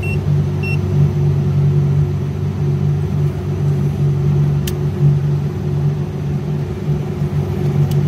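Liebert outdoor condenser running, its fan motors putting out a steady low hum. Two short high beeps sound in the first second, and a single click comes about halfway through.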